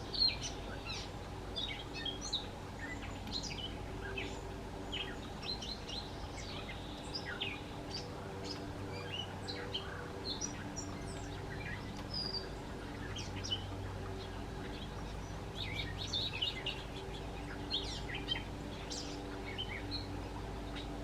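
Several wild songbirds chirping and singing on and off in short high notes, over a steady low hum.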